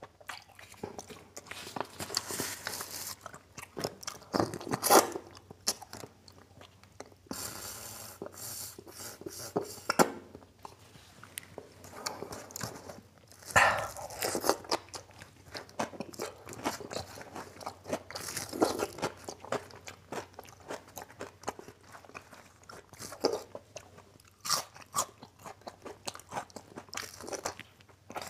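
A person chewing and biting mouthfuls of mutton curry, rice and meat eaten by hand, close to the microphone. There are irregular mouth smacks and occasional crunches of fried papad.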